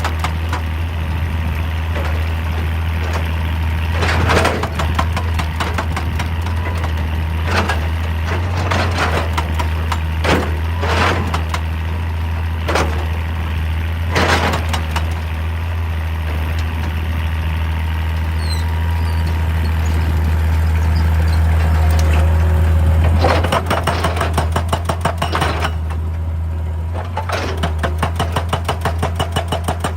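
Hitachi EX200 hydraulic excavator's diesel engine running steadily, with scattered sharp knocks and scrapes as it works rock, and a run of quick regular pulses near the end.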